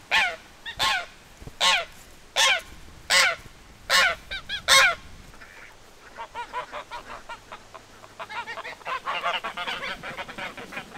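White domestic geese honking: seven loud honks, about one every three-quarters of a second, in the first five seconds. After that comes a quicker, softer run of short calls from the flock.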